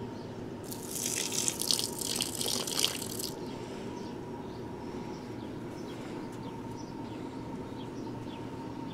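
Water poured from a glass jar splashing onto potted plants for about two and a half seconds, starting about a second in, over a steady low drone.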